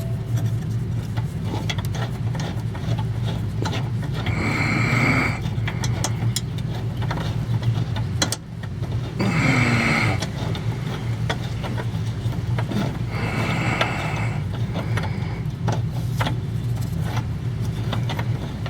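A steady low mechanical hum like a running engine, with scattered clicks and ticks of hand tools working on the fuel-tank strap bolts.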